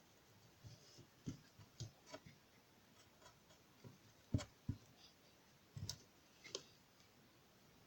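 A stick stirring clear glue in a bowl, with faint, irregular taps and clicks as it knocks against the bowl; the sharpest two come a little past the middle.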